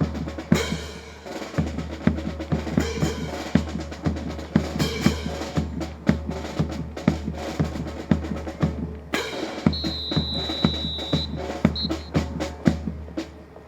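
Drum-led percussion music with a steady beat of about two strikes a second over a deep bass line. About ten seconds in, a high steady tone sounds for about a second and a half. The music cuts off near the end.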